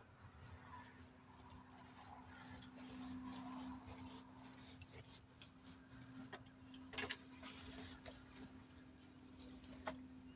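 Faint rustling with a few sharp metal clanks, the loudest about seven seconds in and another near the end, as a metal pool ladder is carried and set down in grass. A faint steady hum runs underneath.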